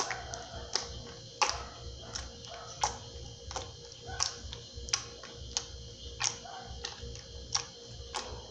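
Slime being squeezed and pressed in the hands, giving off sharp wet clicks and pops, about one to two a second.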